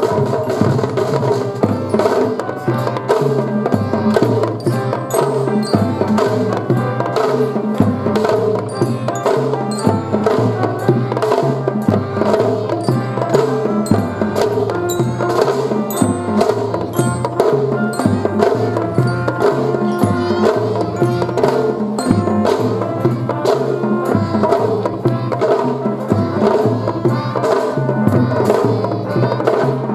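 Children's drum-and-fife band playing a tune: drums beat a steady rhythm under a melody.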